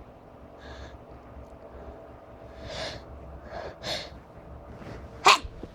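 A person's gasping in-breaths before a sneeze, growing louder, then a short, sharp burst of breath about five seconds in.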